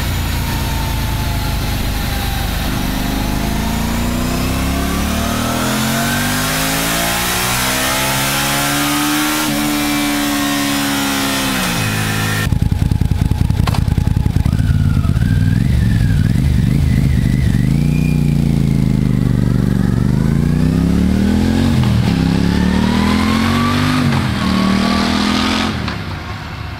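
Honda CX650 Turbo's turbocharged V-twin revving on a dynamometer, its pitch climbing steadily for several seconds. After a sudden cut, the bike pulls away and accelerates hard, the revs rising and dropping with several gear changes, then fading away near the end.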